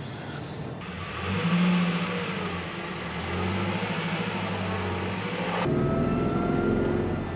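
Car engine running and accelerating, with road noise, cutting off suddenly about three-quarters of the way through.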